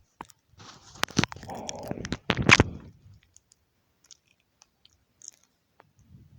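Close handling noise of small hand tools working on the phone's circuit board: a few sharp clicks with a rustling, crunching scrape over the first three seconds, then only faint scattered ticks.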